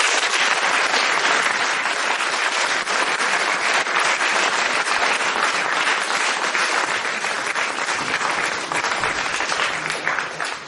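Audience applauding: many hands clapping together, dense and steady.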